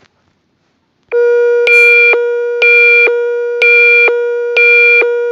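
Electronic emergency-alert attention tone starting about a second in. A steady low tone sits under a higher tone that pulses on and off about once a second. It signals that a new alert message is about to follow.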